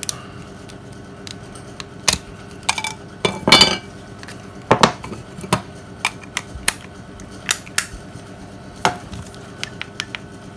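Scattered clicks, taps and a couple of short scrapes from old Nokia mobile phones being handled: hard plastic casings knocking together and being picked up, and keys being pressed.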